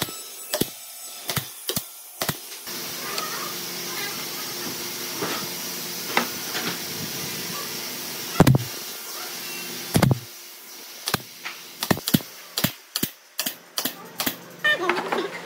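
Pneumatic brad nailer firing nails into a pine table frame: a series of sharp shots, in quick runs of about two a second near the start and again through the last few seconds, with two louder knocks about eight and ten seconds in. A steady hiss fills the quieter stretch in the middle.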